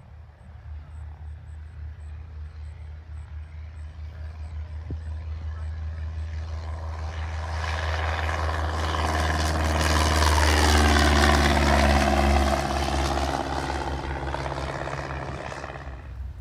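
Single-engine high-wing Cessna's piston engine and propeller at full takeoff power, growing louder as the plane climbs out and passes close. The pitch drops as it goes by, about two-thirds of the way in, and the sound then fades.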